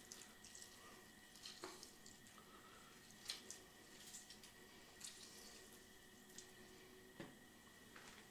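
Near silence with a few faint drips and light ticks: a lemon half being squeezed by hand over a bowl of fish marinade, the juice dripping in.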